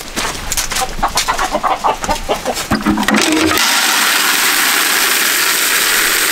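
Feed pellets pouring from a metal feed bin's chute into a plastic bucket: a steady, even hiss that starts about three seconds in. Before it come crunching steps on gravel and chickens clucking.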